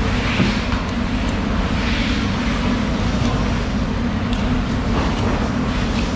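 A steady low machine drone. A few faint clicks and knocks come from a knife cutting into a yellowfin tuna's head.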